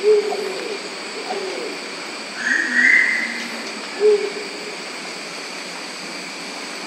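Thick-billed ground pigeon calling: single short, hollow, flute-like "hoo" notes like air blown across a bottle mouth, given at regular intervals, here at the start and again about four seconds later. A higher, rougher sound comes in between, a little before halfway.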